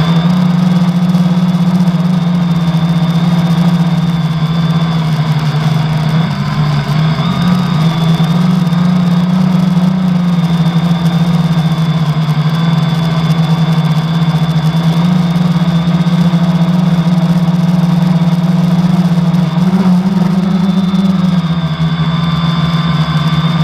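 The steady buzz of a quadcopter's 1000kv brushless outrunner motors spinning 10x4.5 propellers, heard from the onboard GoPro. Its pitch shifts with throttle and goes briefly higher about 20 seconds in. One motor has a bad bearing that can be heard in the sound.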